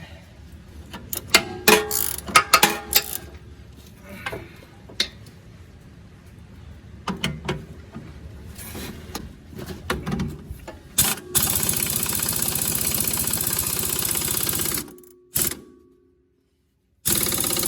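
A few knocks and clanks of tools being handled, then a power impact wrench runs for about three and a half seconds, tightening the lower strut bolt with the suspension at ride height. It stops, and a second burst starts just at the end.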